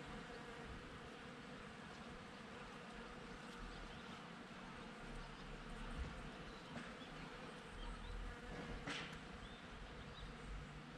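Bees buzzing steadily as they forage on the blossoms, a faint continuous hum. A brief sharp sound stands out about nine seconds in.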